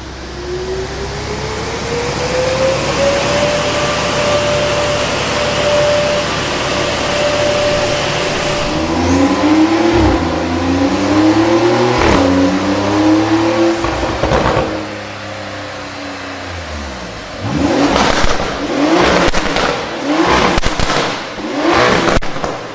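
Porsche 992 Turbo S twin-turbo flat-six with a Capristo exhaust and 200-cell cats under full throttle. The revs climb steadily, then rise and drop in quick steps with a sharp crack at each step. After it lifts off, several short throttle blips follow near the end, each with cracks and pops.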